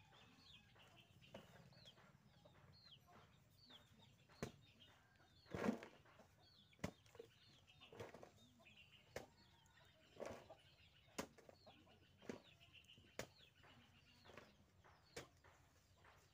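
Hoe blade striking and scraping into dry earth about once a second as soil is dug out. Short, high bird chirps repeat throughout.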